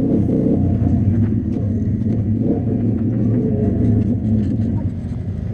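125 cc pit bike engine running at a steady pace while riding, a low even drone with no revving.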